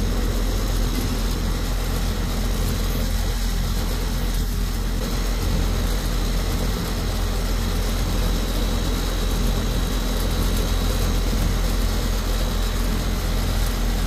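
Outdoor air-conditioning condensing unit running under test: a steady low hum from the compressor with an even noise of the condenser fan over it, unchanging throughout.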